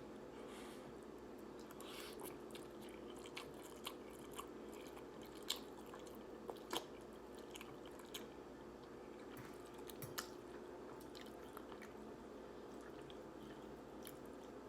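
Close-miked chewing of instant ramen noodles: scattered soft wet clicks and smacks of the mouth, a few louder ones in the middle, over a faint steady hum.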